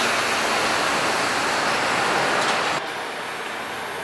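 Metro train running, a steady loud rushing noise that cuts off suddenly near the end to a quieter background hum.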